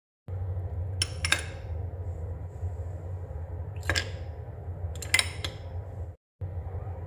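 Ice cubes spooned into a glass, clinking against the glass and the metal spoon: two clinks about a second in, one near four seconds, and another pair just after five seconds, over a steady low hum.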